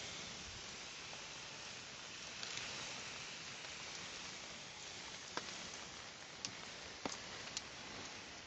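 Wood fire crackling: a steady hiss with a handful of sharp pops in the second half.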